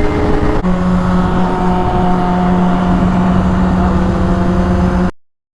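Honda CBR600RR inline-four sportbike engine under way at a steady pitch, with wind rush, as heard from the riding motorcycle. The engine note changes about half a second in, then holds; near the end the sound drops out abruptly for a moment.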